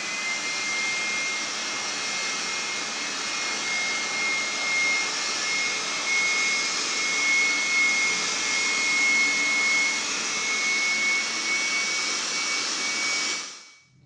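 PROMAKER PRO-SP400 400 W electric blower vacuum running in vacuum mode, picking up sawdust and wood shavings off the floor: a steady high motor whine over a rush of air, spinning up at the start and fading out near the end.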